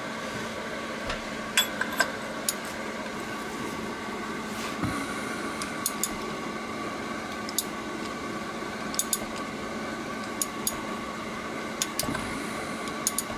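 Scattered light metal clinks as a filter-cap wrench socket and ratchet are fitted onto an oil filter housing cap, over the steady hum of a Honeywell space heater's fan.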